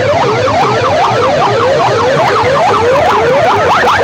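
Siren-like electronic wail blared through banks of horn loudspeakers, the pitch sweeping up and down a couple of times a second with overlapping sweeps. Right at the end it changes to quicker, rapidly repeating sweeps.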